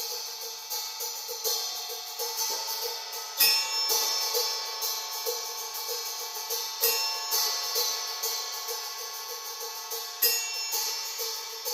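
Cymbals played with brushes: a steady run of light strokes with the cymbals ringing on, and a louder accent about every three and a half seconds.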